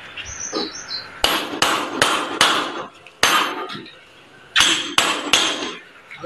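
Hammer striking a wooden window frame in a series of sharp blows: four quick ones about every 0.4 s, then two, then three more near the end.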